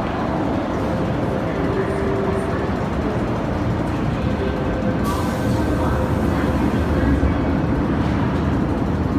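MTR M-Train electric metro train running through an underground station without stopping. A steady rumble builds, and about five seconds in a sudden rush of wheel and air noise starts as the cars sweep past the platform screen doors, loudest about seven seconds in.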